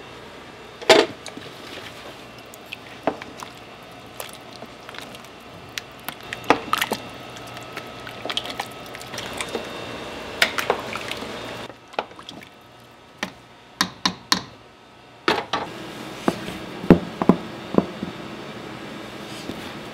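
Kitchen cooking sounds: scattered knocks and clatter of utensils and cookware, with some liquid sounds. A low background hum runs underneath.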